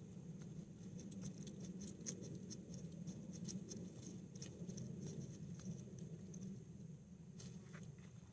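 Rustling and scratching in loose garden soil as sweet potato roots are dug out by hand, a busy run of small scrapes and clicks that thins out near the end, over a steady low rumble.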